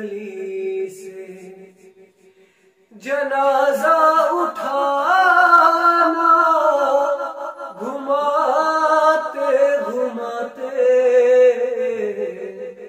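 A man singing a naat without instruments: a held note fades out, then after a short pause about two seconds in he starts a long drawn-out phrase, its pitch sliding and wavering, at about three seconds and keeps singing to the end.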